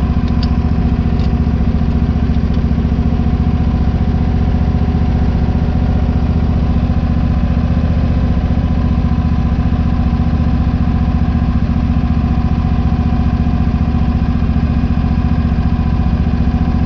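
An engine idling steadily at an even speed, with a few light metallic clicks in the first second or so.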